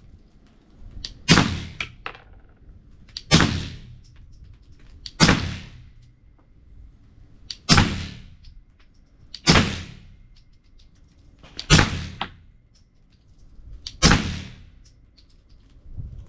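9mm pistol fired through a Griffin Armament Resistance 9mm suppressor: seven suppressed shots, one about every two seconds, each a sharp crack with a short echoing tail.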